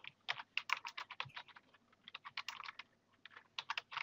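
Fairly faint typing on a computer keyboard: rapid key clicks in three quick runs with short pauses between them as a sentence is entered.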